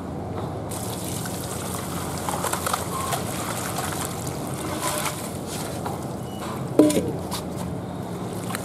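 Water and live freshwater crabs poured from an aluminium basin into a plastic colander, the water splashing and trickling through the colander into the basin below. A brief louder knock about seven seconds in.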